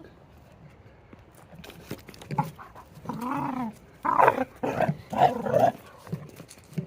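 Dogs vocalizing: quiet at first, then a whine-like call about three seconds in, followed by a run of loud growls and barks.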